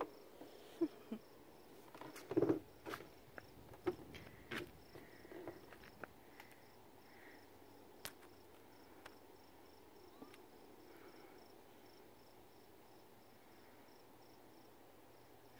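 Faint insect chirping, a high note pulsing evenly about three times a second, stopping about ten seconds in. Footsteps and a few sharp knocks come in the first few seconds, the loudest a thump about two and a half seconds in.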